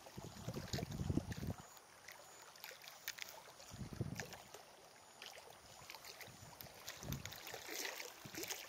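Wind gusting on the microphone in a few low rumbles, over water lapping and a few faint ticks.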